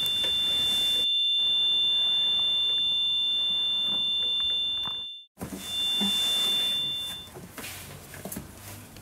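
A steady high-pitched electronic beep tone of two pitches sounding together, typical of a hospital equipment alarm or call buzzer. It holds for about five seconds, breaks off suddenly, then sounds again for under two seconds.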